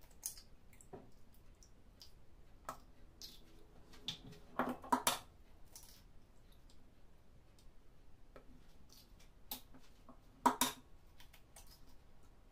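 Eggs cracked against the rim of a jug: two sharp taps about four and a half seconds in and two more about ten and a half seconds in, with faint clicks of eggshell being handled as the whites are separated from the yolks.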